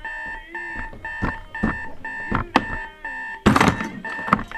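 Digital alarm clock beeping in a steady pattern, about two beeps a second. Over it come a few sharp knocks of a hand on the nightstand, then the loudest sound, a snap and clatter about three and a half seconds in, as the steel coyote trap springs shut on the hand.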